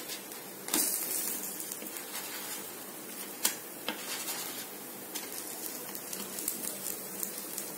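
Ragi dosas sizzling quietly on a non-stick tawa, with a few light clicks of a wooden spatula against the pan.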